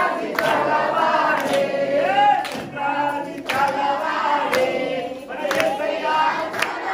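A congregation of men and women singing a worship song together, with a sharp beat about once a second keeping time.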